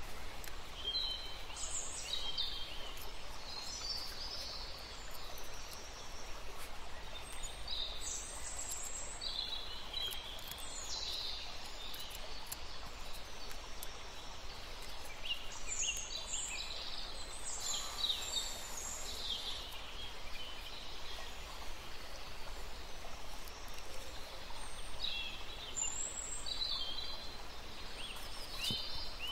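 Cut stained glass pieces being handled and slid into place on a paper pattern: scattered short glass-on-glass squeaks, scrapes and light clicks in several clusters, over a faint steady hum.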